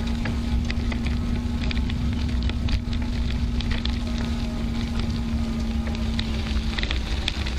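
Bicycle tyres rolling over a gravel road, with the crackle and ticking of loose stones under the wheels and a heavy wind rumble on the microphone. A steady hum runs underneath and stops near the end.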